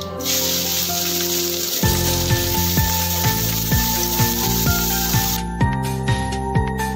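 Chopped onions dropped into hot oil in a kadai, sizzling strongly as they hit the oil and are stirred. The sizzle cuts off about five seconds in. Background music runs throughout, with a regular beat joining about two seconds in.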